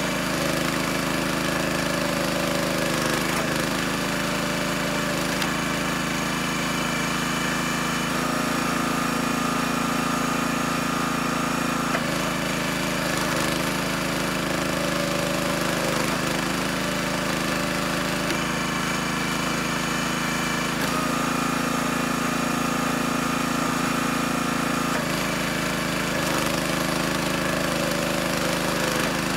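Split-Fire 2265 hydraulic log splitter's small gas engine running steadily while rounds are split. Its note shifts every four seconds or so as the ram is worked through its strokes.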